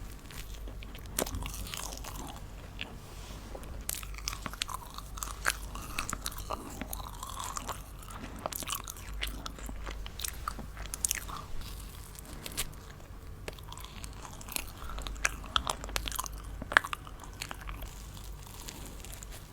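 Close-miked crunching and chewing of food, an irregular run of sharp crackles and clicks with no talking.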